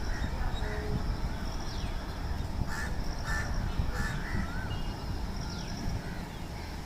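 Birds calling: chirps and short sweeping calls throughout, with three harsh calls about three to four seconds in, over a steady low rumble.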